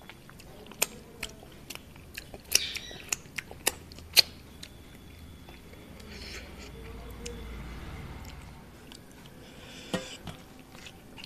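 Sharp clinks of a steel serving bowl against a brass plate, the loudest about four seconds in. Then the softer sound of dal poured from the bowl onto rice and mixed in by hand, with a few more clicks near the end.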